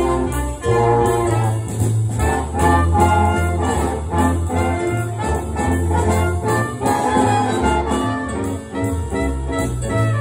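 Big band playing an instrumental swing passage between vocal verses, with the brass section of trumpets and trombones carrying the melody over a strong bass line.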